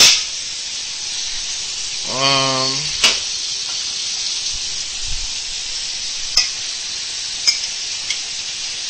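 Food frying in a pan on the stove: a steady sizzling hiss with a few light clicks, like a utensil tapping the pan. About two seconds in comes a brief hum from a man's voice.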